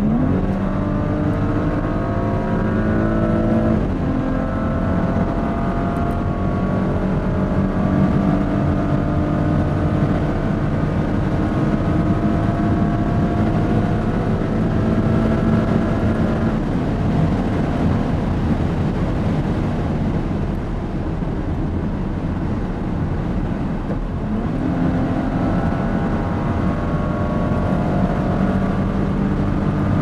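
2018 Porsche Cayenne S's twin-turbo V6, heard from inside the cabin, pulling hard at autobahn speed: the engine note climbs steadily, with one upshift a few seconds in. About halfway the throttle eases and wind and tyre noise take over, then the engine pulls up again near the end.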